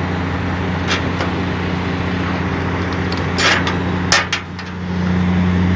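A steady low machine hum, like an engine running, with several sharp clicks and knocks of hand work on metal. The loudest knocks come about three and a half and four seconds in, and the hum briefly drops after the last one before coming back a little louder.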